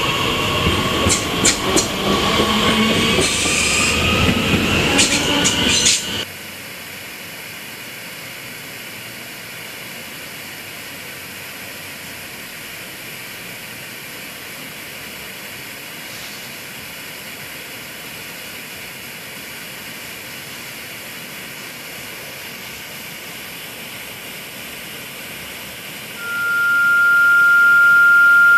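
Train passing close by, with high whining tones that shift in pitch and a few sharp clicks, cutting off suddenly about six seconds in. After that only a faint steady hiss, until a steady high pure tone starts near the end.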